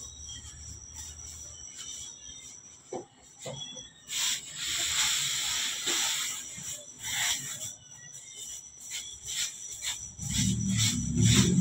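Scattered light knocks, with a stretch of hiss of about two and a half seconds partway through. Music with a steady low beat comes in near the end.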